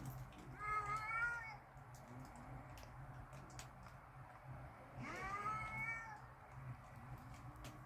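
Domestic cats yowling at each other in an angry standoff before a fight: two long, drawn-out, wavering calls, one about a second in and another about five seconds in.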